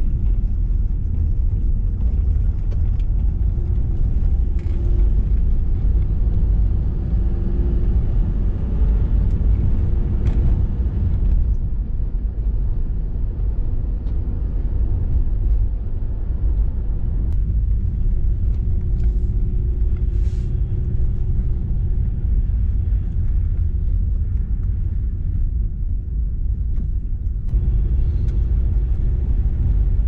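Car driving, heard from inside the cabin: a steady low rumble of engine and tyres on the road. Its character shifts abruptly a few times.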